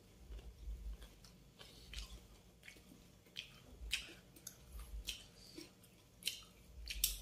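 A person chewing food close to the microphone, with soft, irregular crunching clicks and mouth smacks about two or three times a second.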